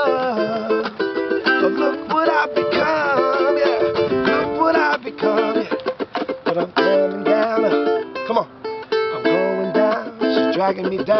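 Acoustic ukulele strummed in a steady rhythm, with a man's voice singing over the chords.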